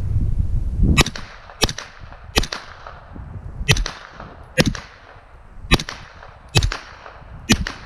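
Eight gunshots at uneven intervals, roughly a second apart, each with a short echoing tail and well short of the loudness of a muzzle blast at the microphone.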